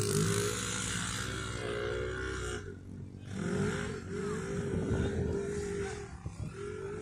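Off-road vehicle engines revving on sand, the pitch rising and falling, with a brief lull about three seconds in.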